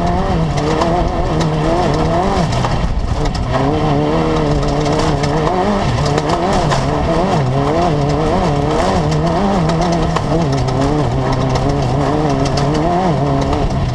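Class 10 off-road race car's engine running hard under racing load, its revs rising and falling continually with throttle and gear changes.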